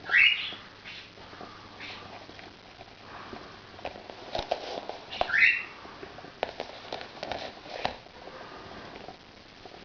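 Scattered light clicks of a balisong's handles and latch being handled, with two short rising squeaks, one near the start and one about five seconds in.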